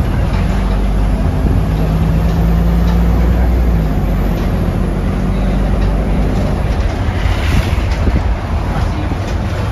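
Volvo B240R city bus's diesel engine running as the bus drives along, heard from inside the passenger cabin; the engine note drops about four seconds in.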